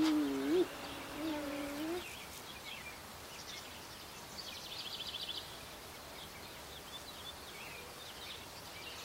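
A small songbird singing a rapid, high trill of about ten notes a second, a few seconds in, over steady outdoor ambience. During the first two seconds a low humming voice, bending in pitch, is the loudest sound.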